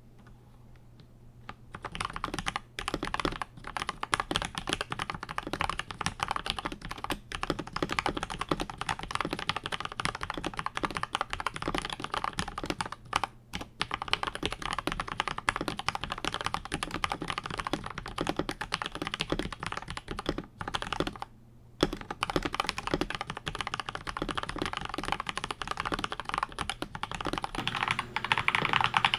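Typing on an Akko 5075S mechanical keyboard with Gateron Milky Yellow linear switches lubed with Krytox 205g0 and mounted on a polycarbonate plate: a fast, continuous run of keystrokes. Typing starts about a second and a half in and pauses briefly twice.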